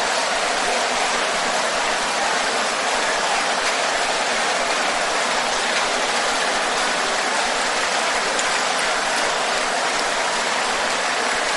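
A large congregation praying aloud all at once, many voices merging into a steady, even wash of sound in which no single voice stands out.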